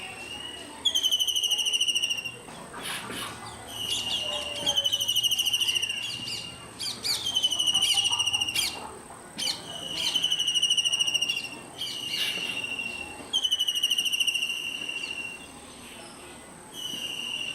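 Kingfisher calling in a series of about nine long, shrill, slightly falling notes, each about a second long with a fast trilled texture. A steady high insect drone runs underneath.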